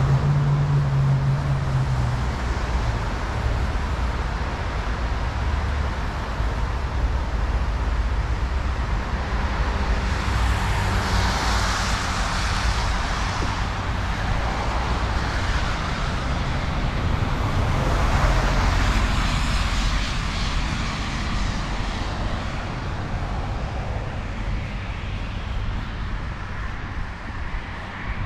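City road traffic: a steady rumble of engines and tyres, with vehicles swelling past about eleven seconds in and again around eighteen seconds. A low engine hum is heard at the very start.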